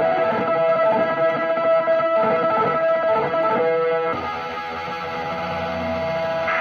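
Taishōgoto (Japanese keyed zither) played as a dense, sustained drone of ringing strings. About four seconds in the texture shifts into a hazier, noisier wash.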